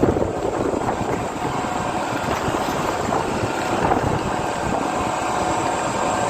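Strong cyclone wind blowing across the microphone, a steady rushing noise with no break.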